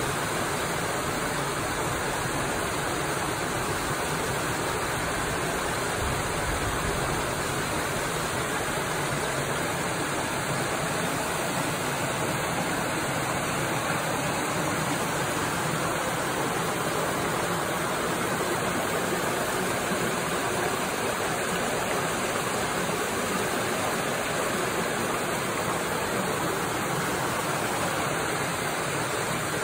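Muddy storm runoff pouring over a small rocky waterfall into a pool: a steady, unbroken rush of water.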